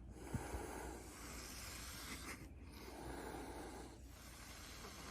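Two cats hissing: two long, faint hisses, the second starting about halfway through.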